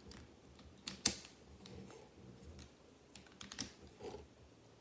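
Plastic Rubik's cube pieces clicking as they are pressed into the partly assembled cube. The clicks are light and irregular, and the sharpest comes about a second in.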